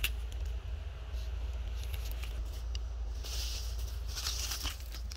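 Plastic litter and dry debris rustling and crinkling as it is moved by hand, with small scattered clicks, over a steady low rumble. The rustling grows louder about three seconds in.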